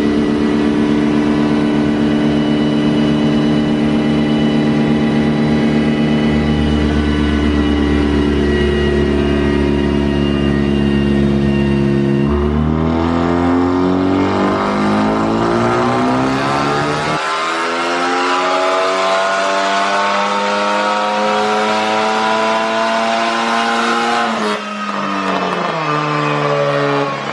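Big-turbo Ford Focus ST's 2.0-litre turbocharged four-cylinder running on a chassis dyno. It holds a steady engine speed for about twelve seconds, then makes a wide-open pull with the note rising steadily for about eleven seconds, and the revs drop sharply near the end as the throttle is closed.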